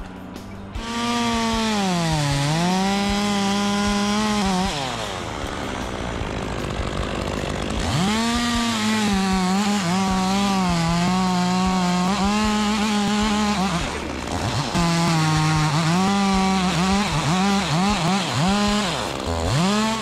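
Stihl top-handle chainsaw at full throttle cutting through a northern red oak trunk in three long runs. The engine pitch dips as it bogs under load and recovers, with a quieter spell a few seconds in.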